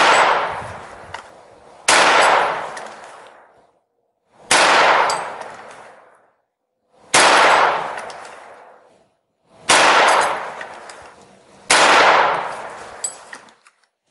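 Six .22LR shots from a 20-gauge break-action shotgun fitted with a GaugeMate .22 rimfire adapter, about two to two and a half seconds apart. Each is a sharp crack that fades over a second or two, with the steel target plates clanging as they are hit.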